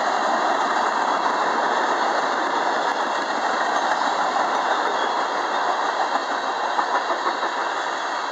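Freight cars of a passing manifest train, boxcars and covered hoppers, rolling by at speed: a steady noise of steel wheels running on the rails.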